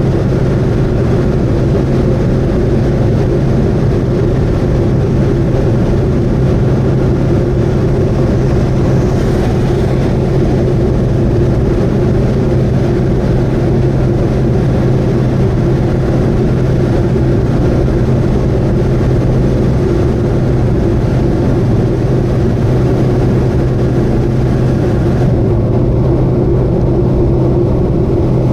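Subaru Vivio running at steady expressway speed: continuous engine and road noise with a constant low drone. The hiss on top falls away near the end.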